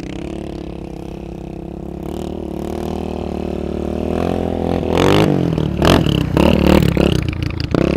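Off-road vehicle's engine revving hard under load while dune-bashing up sand, rising steadily in pitch and growing louder. From about five seconds in the revs rise and fall unevenly amid rough noisy bursts.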